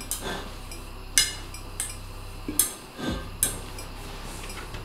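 An upturned stainless steel bowl knocking and clinking as hands press and shape dough over it: half a dozen sharp taps, the loudest about a second in.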